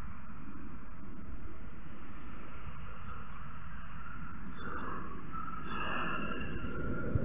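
Countryside ambience: a low steady rumble, a steady high insect drone, and a few bird calls about five to six seconds in.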